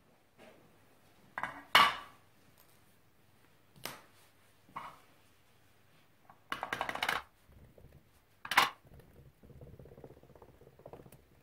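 Light clinks and taps from a metal paint tin lid and a small paint applicator handled on a wooden workbench. A sharp tap comes about two seconds in, then two softer ones, a quick run of taps mid-way, and another sharp tap, followed by faint rustling.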